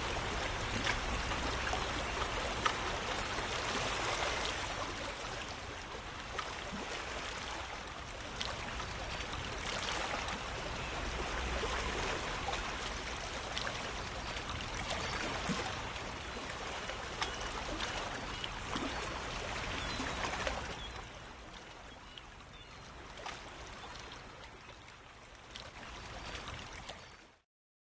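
Running water sound effect, a steady rushing stream with small splashes, growing quieter about three quarters of the way through and cutting off suddenly near the end.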